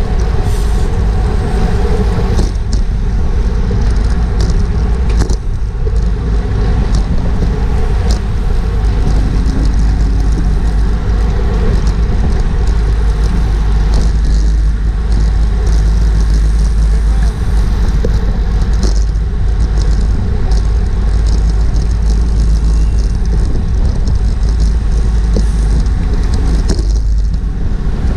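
Wind buffeting a bicycle racer's GoPro microphone at speed, a loud steady rumble, with scattered sharp clicks from the bike.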